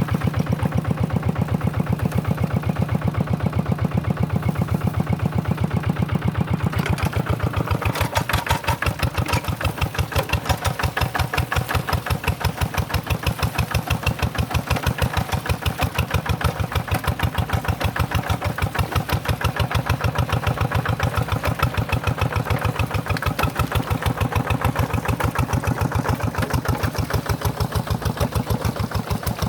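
Tractor engine running with a rapid, even beat. About seven seconds in, a harsher, brighter noise joins it.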